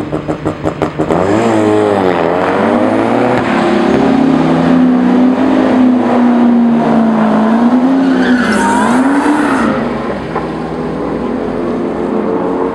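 A 2003 Mustang SVT Cobra's supercharged 4.6-litre V8 doing a burnout: a few quick pulsing revs in the first second, then the engine held at high revs with the rear tyres spinning and squealing for about eight seconds, easing off about ten seconds in.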